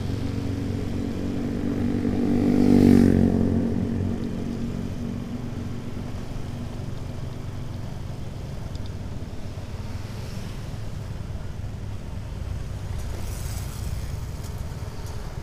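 A motorcycle engine running steadily while riding along a road, with road and wind noise. The engine sound swells to its loudest about three seconds in, then settles to an even hum.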